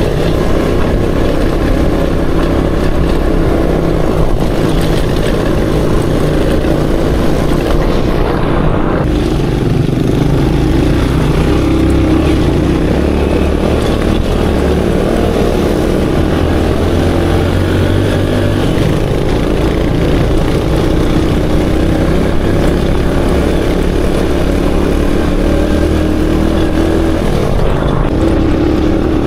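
Aveta Ranger Max off-road motorcycle engine running under way, its note rising and falling with the throttle. It eases off briefly about nine seconds in and again near the end.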